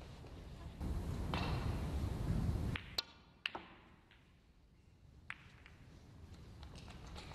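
Snooker balls clicking on the table: a low rumble for about two seconds, then a sharp ringing click about three seconds in, two quick clicks half a second later, and a single lighter click near the middle.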